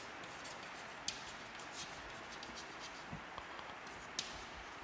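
Chalk writing on a chalkboard: faint scratching strokes and light taps, with a sharper tap about a second in and another near the end.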